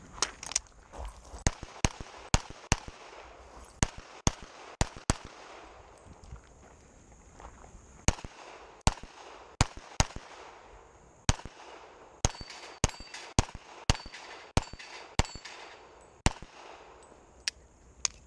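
Semi-automatic pistol firing about two dozen shots, mostly in quick pairs and short strings, with pauses of one to three seconds between groups.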